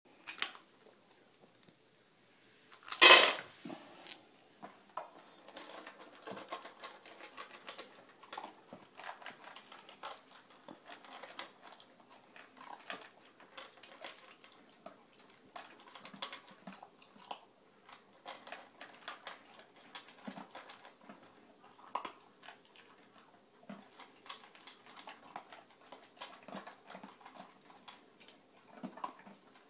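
Two huskies, a puppy and an adult, eating kibble from stainless steel bowls: irregular crunching, with kibble clinking and scraping against the metal bowls. One loud sharp noise stands out about three seconds in.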